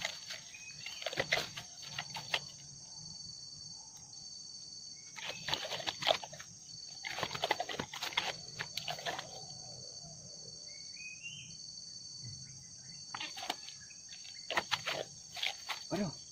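Steady high-pitched insect chorus, with several clusters of sharp clicks and rustles from close by; faint short rising bird chirps once or twice.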